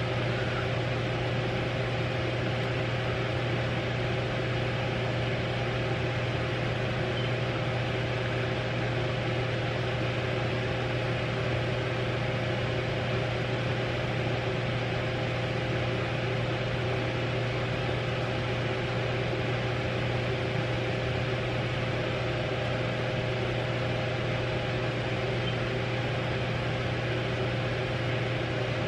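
An electric fan running with a steady hum, a low drone under an even whirr.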